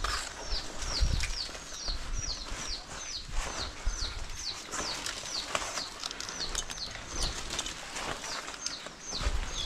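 A small bird calling a rapid, steady series of short high falling notes, about three a second, with occasional knocks and rustling from cable being handled close by.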